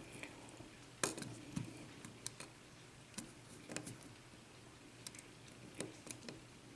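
Lock pick working the spool-pin stacks of a five-pin Corbin euro cylinder: faint, irregular small metallic clicks and ticks, the loudest about a second in.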